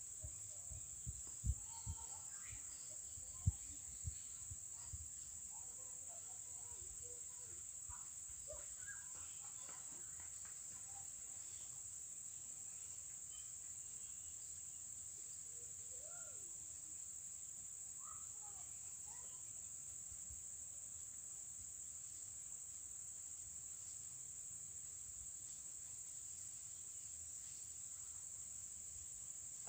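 A steady high-pitched insect drone, with faint bird calls here and there and a few low thumps in the first few seconds.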